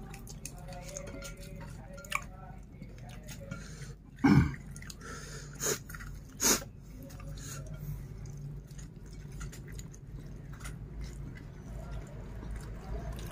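A man eating rice and pecel with his hands: soft chewing and mouth sounds with scattered small clicks over a steady low hum. A brief throat sound comes about four seconds in, followed by two sharp clicks.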